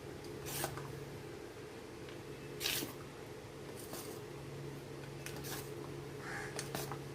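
A spoon stirring thick semolina cake batter in a bowl: a handful of soft, squishy scraping strokes, spread out about a second or more apart, over a steady low hum.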